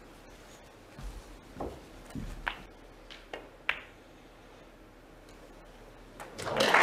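Snooker balls clicking against each other and knocking on the table, several separate sharp clicks and a few dull knocks, then audience applause rising to loud near the end as a pot is made.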